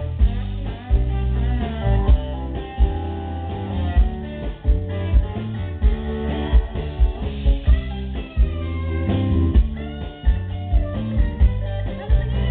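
Live band playing an instrumental passage: electric guitar to the fore over bass guitar and a Tama drum kit keeping a steady beat.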